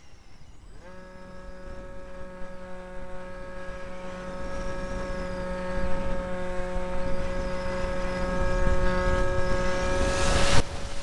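Electric motor and propeller of a small RC model Cessna whining at a steady high pitch, heard from a camera mounted on the plane. It throttles up about a second in, with wind rush on the microphone growing louder, and there is a sharp click near the end.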